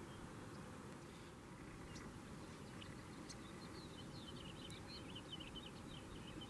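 Faint outdoor ambience: a steady low hiss of light breeze, with a few scattered ticks. About halfway through, a quick run of short, high-pitched bird chirps begins.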